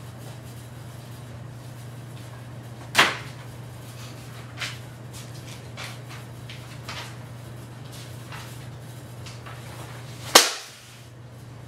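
Pages of a book being leafed through with faint rustles and flicks, then the book flung down with a sharp, loud smack near the end. Another sharp smack comes about three seconds in.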